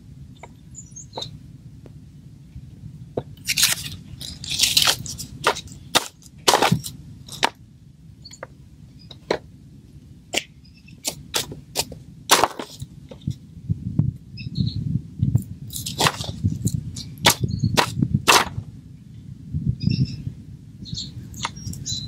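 Dried leaves crackling in sharp, irregular snaps as hands press and arrange a dried maple leaf and other natural materials in a box, over a low steady rumble that swells in the second half.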